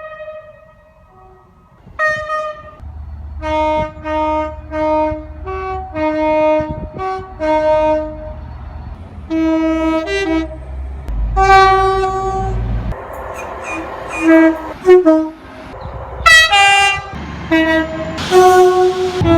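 Multi-tone train horn sounding a long series of short blasts, several notes together as a chord, about a dozen toots in quick succession over a low rumble, with louder, noisier blasts in the last few seconds.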